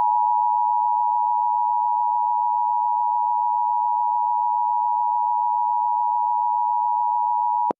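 Emergency Alert System attention signal: the two-tone 853 and 960 Hz alert tone that introduces an emergency broadcast, held perfectly steady and cutting off sharply just before the end.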